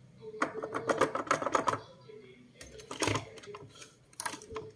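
Clicking and knocking of a loose inverter transformer, its pins snapped off, being lifted and moved against the circuit board and plastic enclosure, in quick clusters about half a second to two seconds in, again around three seconds and near the end.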